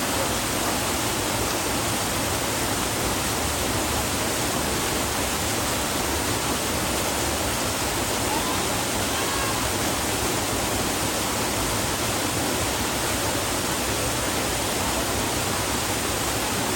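Waterfall's steady rush of falling water, even and unbroken, with no splash or other sudden sound.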